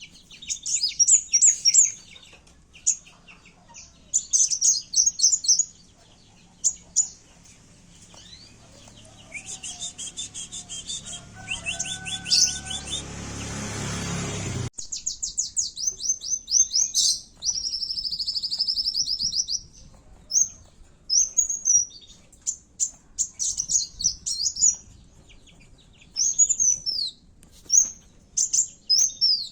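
Kowul (kolibri wulung) sunbird song for luring birds: rapid, high chirps and trills in bursts of a second or two with short gaps. Midway, a noisy rumble builds for a few seconds under the song and cuts off suddenly.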